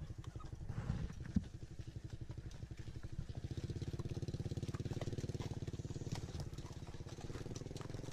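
A small motorcycle engine puttering as it passes close by, its rapid, even firing beat growing louder about halfway through and then easing off. A few scattered clicks sound over it.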